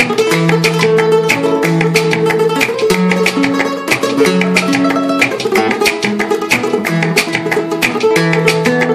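Solo acoustic flamenco guitar playing a rumba flamenca: quick rhythmic strummed strokes over a bass line that steps from note to note.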